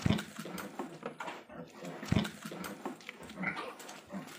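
Pigs in a farrowing pen giving short grunts and squeaks, with two heavy thuds about two seconds apart.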